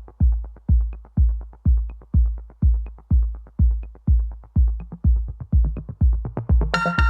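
Electronic dance music: a heavy kick drum on every beat, about two a second, with quick hi-hat ticks in between; a bright synth chord comes in near the end.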